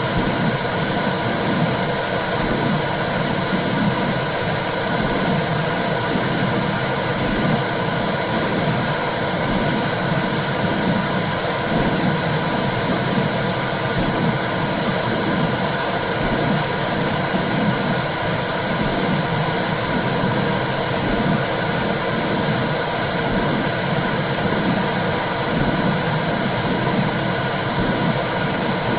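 Womb sound for soothing a baby: a steady whooshing noise with a rhythmic low pulsing throughout, like blood flow and heartbeat heard from inside the uterus.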